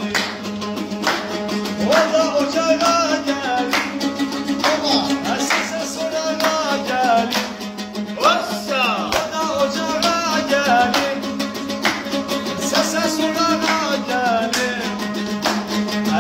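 Azerbaijani saz strummed rapidly with a steady drone, while a man sings a folk song over it.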